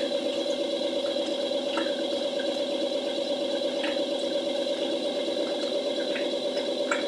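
Uniformation GK3 Ultra resin 3D printer's motor running with a steady whine of several pitches, with a few faint ticks over it.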